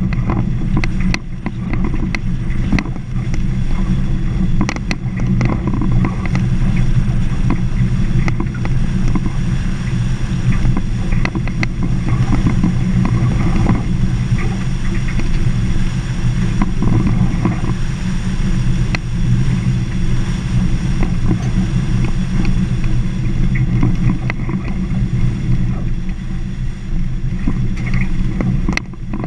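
Vehicle driving along a rough gravel dirt road: a steady low engine and tyre rumble with frequent small clicks and knocks from the stony surface.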